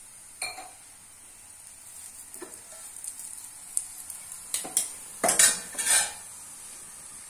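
Paratha sizzling faintly on a hot tawa while a steel spoon scrapes and taps against it, with a few sharp clinks of steel utensils, the loudest about five to six seconds in.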